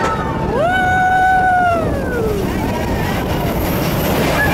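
A rider's long "whoo" that rises, holds for about a second and glides down, over the steady rumble and rushing air of the Expedition Everest roller coaster train.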